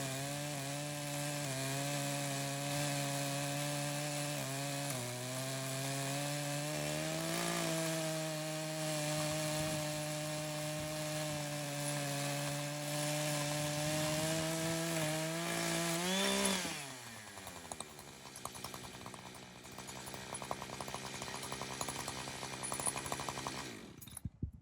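Echo CS-590 59cc chainsaw with a ripping chain running at full throttle in a homemade chainsaw mill, ripping a slab off a red oak block, its pitch steady. About two-thirds through, the engine briefly rises in pitch, then the throttle is released and it drops to a quieter idle for several seconds before the sound cuts off.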